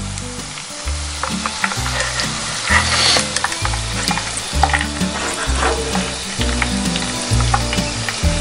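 Spiral-cut potatoes deep-frying in hot oil in a cast iron pot, with a steady sizzle and a few light clicks as a wire spider skimmer lifts and turns them. Low background music runs underneath.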